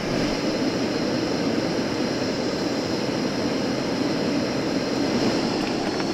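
Fire Maple FMS-105 remote-canister gas camp stove burning steadily at full flame, a constant rushing roar.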